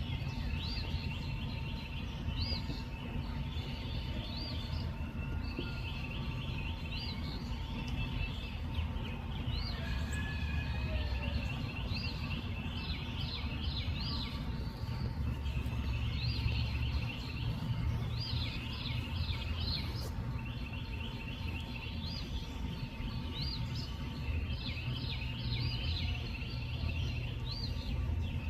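Night ambience of animals chirping: short, rapid high-pitched trills repeating every second or two, over a steady low rumble.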